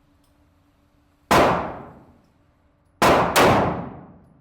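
Three pistol shots: one about a second in, then two in quick succession near the end, each ringing out in a long echo.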